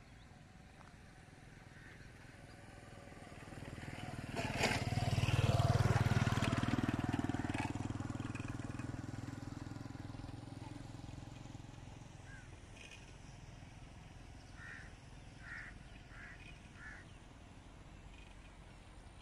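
A motorcycle passes by. Its engine grows louder to a peak about five seconds in, then fades away over several seconds. A few short bird calls follow near the end.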